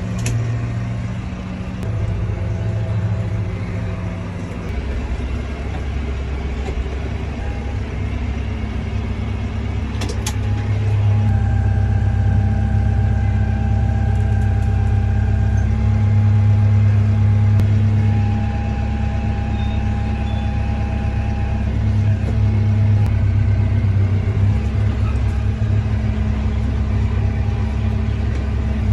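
Tractor engine running steadily while towing a hay rake, getting louder about eleven seconds in.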